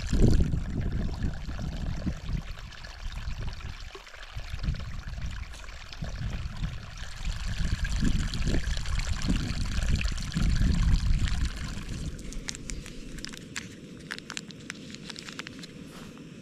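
Gusty wind buffeting the microphone: uneven low rumbling that swells and dips over a steady rushing hiss. The gusts ease off near the end, leaving the hiss and a few faint clicks.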